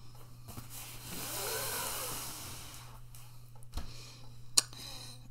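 A cardboard box with a stack of dishes on it sliding across a tablecloth-covered table, a scraping stretch about a second in, then a soft thump and a sharp click near the end as it is set down. A steady low hum runs underneath.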